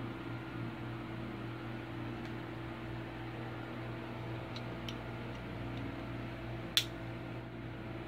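Stainless steel multi-tool pliers handled, its folding tools giving a few faint metal clicks and one sharp click near the end, over a steady low hum.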